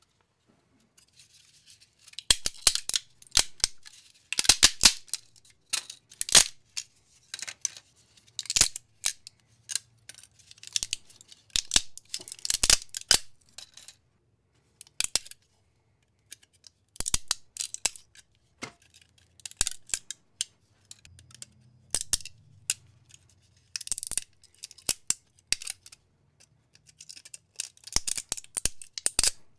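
Breakaway support material being snapped and peeled off a 3D-printed plastic toy figure: irregular clusters of sharp plastic cracks and clicks, with short pauses between.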